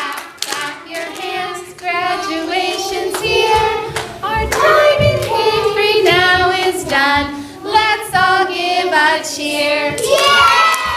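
Group of young children singing a lively song in unison, with hand claps along with it.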